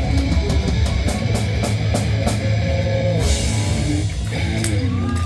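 Live rock band playing electric guitar, bass and drum kit, with an even drumbeat through about the first half.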